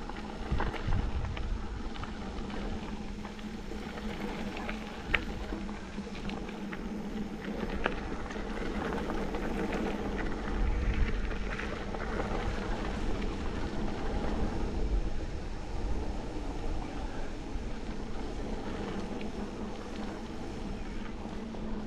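Mountain bike rolling fast on a gravel forest track: steady tyre noise and rattle, with wind rumbling on the microphone, strongest about halfway through. Scattered sharp clicks and knocks come from stones and bumps, the clearest about a second in and about five seconds in.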